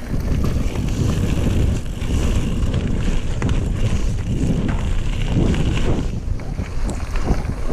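Mountain bike rolling fast over a gravel singletrack: heavy wind buffeting on the action camera's microphone over the rumble of the tyres, with frequent small clicks and rattles from the bike.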